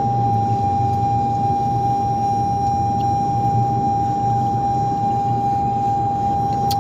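2021 Toyota Corolla's seatbelt reminder chime sounding as a steady unbroken high tone, warning that a belt is unfastened, over the low rumble of the car.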